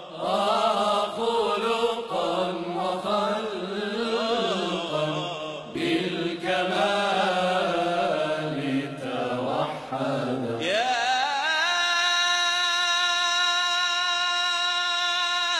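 A man's solo voice chanting an Islamic devotional inshad in winding, ornamented melismatic lines. About ten seconds in the voice slides upward and holds one long, steady high note.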